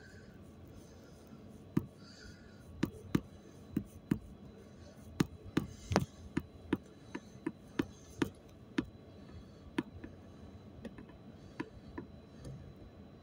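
Irregular sharp clicks and knocks, coming close together in the middle, over a low steady rumble inside a city bus.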